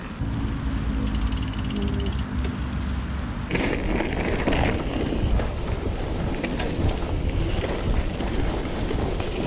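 Mountain bike on the move: a fast ratchet-like buzz, typical of a rear freehub while coasting. From about three and a half seconds in it gives way to rough rattling noise, consistent with tyres on rough trail and wind on the microphone.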